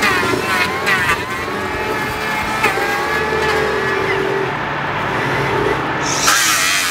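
Handheld electric power planer running on a timber, its motor whine sliding up and down in pitch in the first second as it takes a cut, then running steadily. A louder hissing sound comes in near the end.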